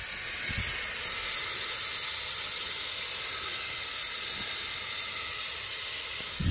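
Steady hiss of steam escaping from the overheated straight-six engine's cooling system of a 1952 Dodge Meadowbrook, the sign of the engine boiling over.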